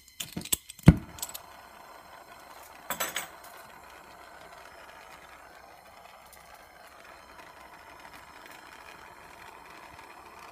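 A soldering torch being lit: several sharp clicks in the first second, then the steady hiss of the flame, with a brief surge about three seconds in, as it heats a small brass disc for sweat soldering.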